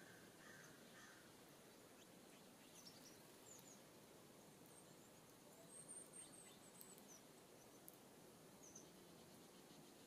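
Faint, scattered high-pitched chirps and call notes of small songbirds at a seed feeder, with a lower call in the first second, over a steady low outdoor hiss.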